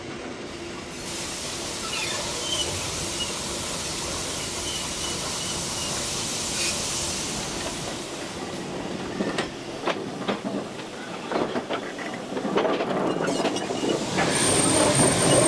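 Steam locomotive sounds: a steady hiss of steam, a run of irregular knocks and clanks about nine to thirteen seconds in, then louder rushing steam with a thin high tone near the end.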